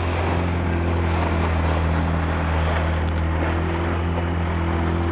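A small boat's motor running steadily at cruising speed, a constant low drone, over the rush of water and wind as the hull moves through the chop.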